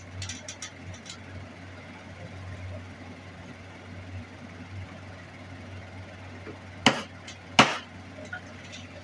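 Small metal pieces and hand tools handled on a jeweller's bench: a few light clicks early, then two sharp knocks about a second apart near the end, over a steady low hum.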